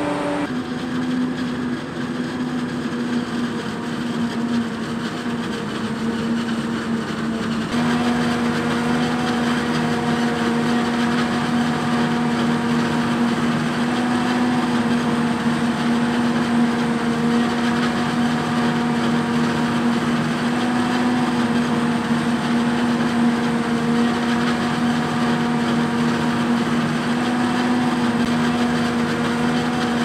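Diesel engines of a self-propelled forage harvester and tractor chopping maize and hauling the silage trailer, running as a steady drone over a noisy rush of machinery; the hum shifts slightly about eight seconds in.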